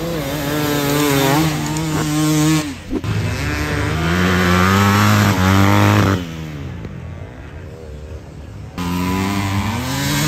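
Dirt bike engines revving hard as the bikes ride past, one after another. About six seconds in one engine's note falls and fades as it moves off, and another comes in louder near the end.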